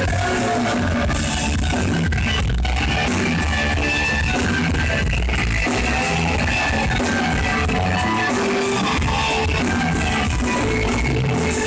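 Rock band playing live, with electric guitar over a driving drum kit.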